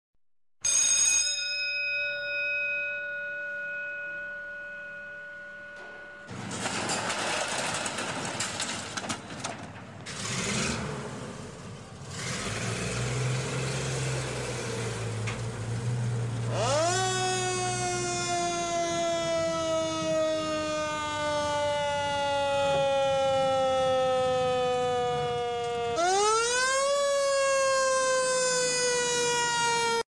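A bell struck once, ringing down over about five seconds. Then a fire engine's engine starts and runs. From about 17 s in, the fire engine's siren winds up quickly and falls slowly, twice.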